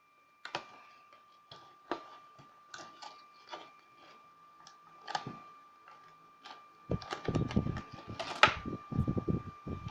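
Small clicks and taps of plastic packaging and in-ear headphones being handled, about one or two a second. About seven seconds in, louder rustling and handling noise starts close to the microphone. A faint steady high whine runs underneath throughout.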